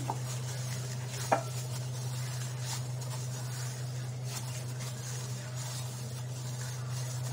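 Plastic-gloved hands kneading soft homemade flour-and-oil play dough in a glass bowl: faint rustling and squishing, with one sharp click against the bowl just over a second in, over a steady low hum.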